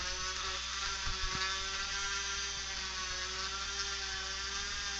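Rotary dental handpiece spinning a bur as it cuts a sectioning groove through a 3D-printed molar model: a steady whir with several even whining tones over a hiss.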